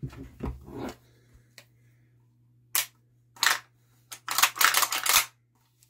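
Sharp metallic clicks and clacks from a gas blowback airsoft AK being handled. A few single clicks come first, then a quick run of clacks about four to five seconds in.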